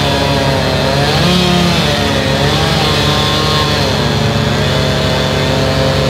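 Crane truck's engine running under load as the boom swings a hanging section of eucalyptus trunk, its pitch swelling and dipping every second or two over a steady low hum.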